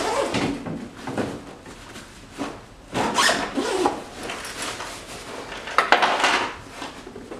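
A padded soft rifle case being handled and rummaged through: rubbing and rustling of the case and its contents in several bursts, with a sharp knock about six seconds in.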